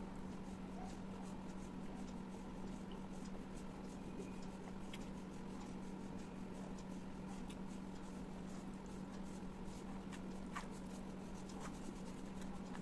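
Close-miked eating sounds: a person chewing, with scattered small wet mouth clicks, over a steady low hum.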